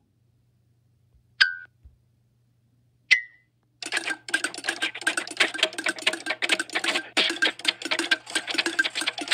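Cartoon sound effects: two short sharp clicks, each with a brief ringing tone, a second and a half apart. About four seconds in, a fast clattering run of clicks begins, like rapid typing.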